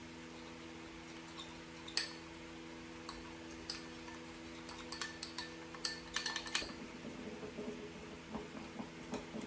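Small metal spatula clinking and scraping against a small ceramic bowl while stirring thick black royal icing: one sharp clink about two seconds in, then a run of quicker clinks from about five seconds on, easing into softer scraping. A steady low hum underneath stops about two-thirds of the way through.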